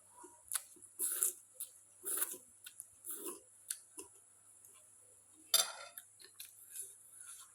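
Close-miked eating sounds: irregular bites and chewing with clicks of cutlery against a dish, the loudest about five and a half seconds in.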